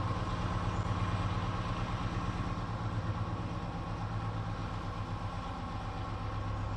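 Diesel engine of a Class 70 freight locomotive (GE PowerHaul V16) running at a steady low note, fading slightly as the locomotive draws away.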